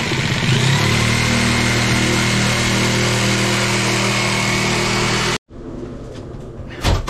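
Corded reciprocating saw running steadily as its blade cuts through a wooden subfloor, then cutting off abruptly about five and a half seconds in. A few knocks follow near the end.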